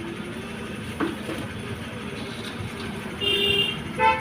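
Steady background rumble of traffic with a sharp click about a second in, then a vehicle horn near the end: a half-second tone followed by a short, louder beep.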